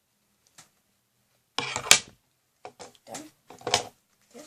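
Handling noises: a loud rustle-and-knock about two seconds in, then a run of shorter rustles and clicks as items are moved about.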